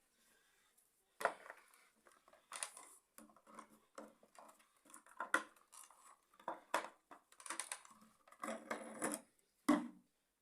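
Irregular clicks, knocks and clatter of hard plastic and metal parts being handled, typical of vacuum cleaner attachments being fitted and set up; no motor is running.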